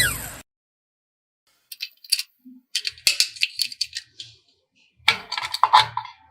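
Irregular runs of small sharp clicks and rattles, like small hard objects being handled and knocked together, in two bursts separated by a short pause.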